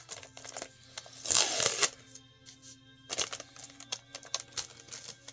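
Plastic comic-book bags crinkling and rustling as comics are handled, loudest for about half a second a little over a second in, then scattered lighter rustles and clicks.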